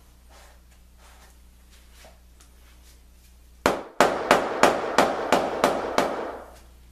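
A hammer striking wood, one loud blow a little over halfway in, then seven more in quick succession at about three a second, each ringing on between blows.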